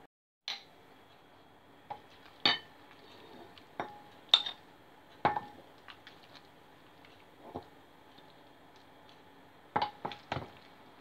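A metal spoon clinking and scraping against a ceramic baking dish and a metal bowl while scooping out food: about ten separate sharp clinks, the loudest a little over four seconds in and a quick run of three near the end.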